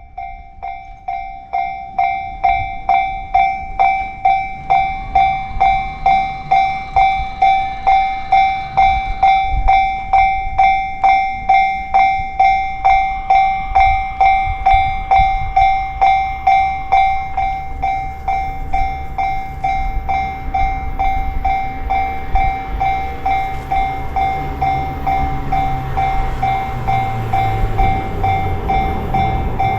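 Japanese railway level-crossing warning bell ringing its repeated 'kan-kan' tone about twice a second. A train's low rumble builds in over the last several seconds as it approaches the crossing.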